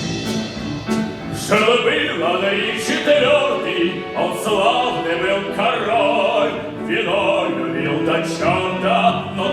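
A stage musical number: orchestral accompaniment, then a voice starts singing a verse about a second and a half in.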